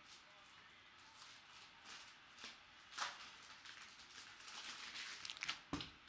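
Clear plastic card holder handled in the hands: scattered small clicks and rubbing of plastic, busier in the last couple of seconds, ending with a knock as the holder is set down on the table.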